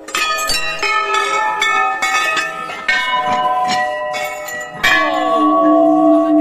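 Large brass Hindu temple bells struck by hand one after another, their ringing tones of different pitches overlapping. The loudest strike comes about five seconds in and leaves a long ring.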